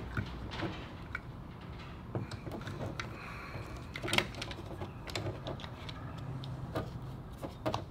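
Scattered light clicks and knocks of plastic plug parts being handled and pushed together while a 30-amp shore power plug is assembled over its wiring, one sharper click about four seconds in.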